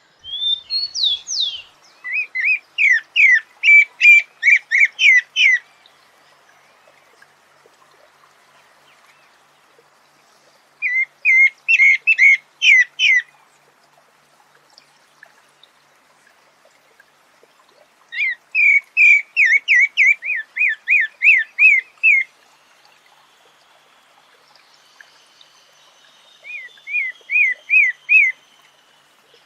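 Pale-breasted thrush (sabiá-barranco) singing four phrases of quick, repeated whistled notes, with pauses of several seconds between them.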